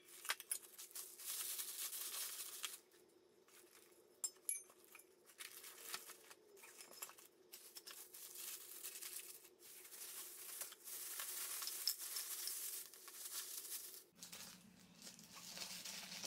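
Clear plastic wrapping crinkling in stretches as stainless steel tumblers are wrapped and packed into a soft suitcase, with a few light knocks.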